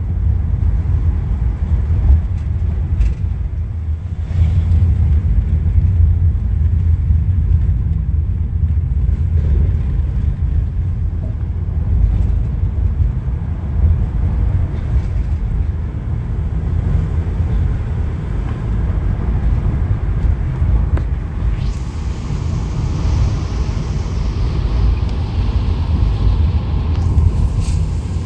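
Steady low rumble of a moving road vehicle heard from inside its cabin: engine and tyre noise on the road. A hiss rises about three-quarters of the way through and fades again near the end.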